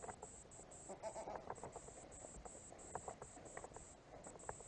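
Goats bleating faintly, with a few soft knocks and rustles.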